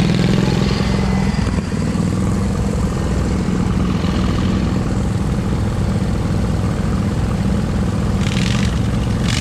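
Offroad mud mowers built from Wheel Horse garden tractors, their engines running with a steady low drone. The nearest engine's note shifts about a second and a half in.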